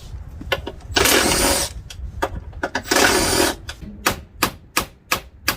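Two short bursts of a power tool working the 12 mm door-hinge bolts of a Nissan Maxima, about a second and three seconds in. Near the end come a series of sharp clicks, about three a second.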